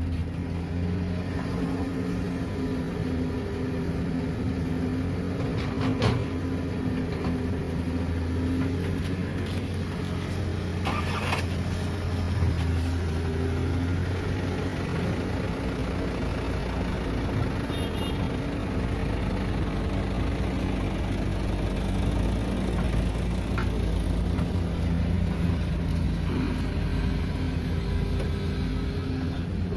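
Diesel engines of a hydraulic excavator and an Isuzu Elf dump truck running steadily. A sharp knock comes about six seconds in and another around eleven seconds in. About halfway through, the engine note drops lower.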